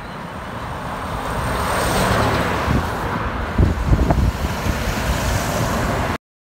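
Heavy goods lorry driving past on a highway, its engine and tyre noise swelling as it nears and staying loud with a few low surges, with some wind on the microphone. The sound cuts off suddenly near the end.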